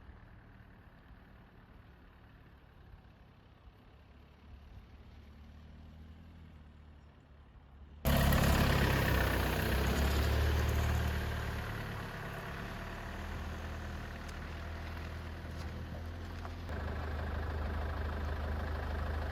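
A vehicle engine running steadily, faint for the first eight seconds, then suddenly much louder as a steady low rumble with a rushing noise over it.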